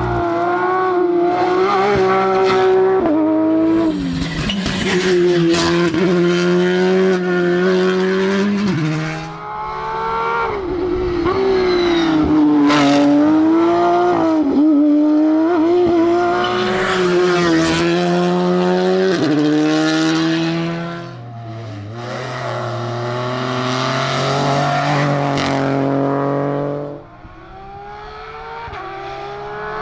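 Rally cars at full throttle on a stage, engines revving high and dropping as they shift gears, with a few sharp pops from the exhaust. The engine note fades out and picks up again several times.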